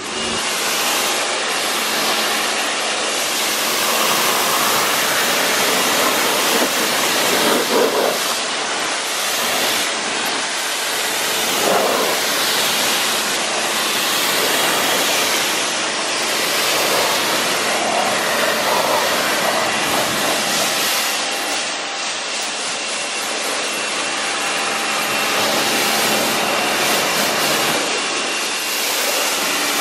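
Pressure washer jet spraying steadily onto a car's paint and windows, rinsing off ceramic foam: a loud, continuous hiss that swells now and then as the jet moves over the panels, with a faint steady whine underneath.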